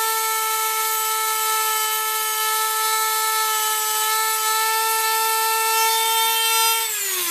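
Handheld high-speed rotary tool running at a steady high whine, taking glue residue off the metal dipstick tube, then winding down near the end.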